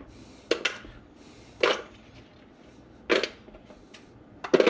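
Small sheepshead skull bones dropped one at a time into a clear cashew container, clicking against it. There are three separate sharp clicks, each well over a second apart, then a quick run of clicks near the end.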